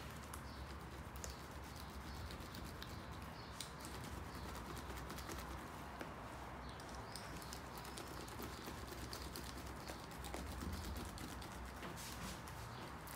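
A small hand seam roller worked back and forth over a freshly glued drysuit zip, with many small irregular clicks and rubbing against the rubberised suit material, over a steady low hum.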